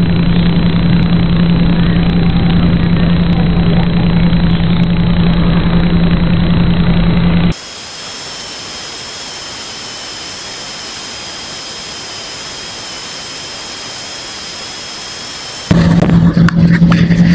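Loud steady low electrical buzz on the audio channel of an analog FPV video link, which has no microphone connected. About seven and a half seconds in it cuts to a quieter steady hiss with two faint high whines. Near the end the buzz returns with crackling.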